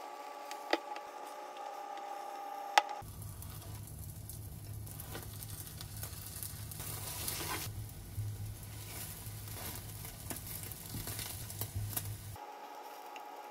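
Food sizzling and frying in a pan, a steady hiss with scattered clicks, from about three seconds in until shortly before the end. Before and after it a steady hum is heard, with two sharp clicks near the start.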